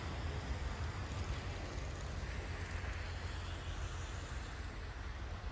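Low-floor electric tram rolling away along the track, its running noise slowly fading as it recedes. Wind buffets the microphone with a fluttering low rumble.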